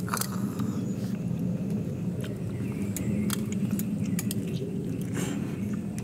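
A man chewing a mouthful of boiled chicken, with a few short wet mouth clicks now and then, over a steady low background hum.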